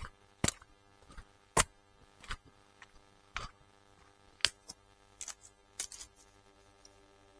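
Footsteps crunching on dry leaves and twigs on the woodland floor, a sharp crackle roughly once a second, with a quick pair of crackles about five to six seconds in.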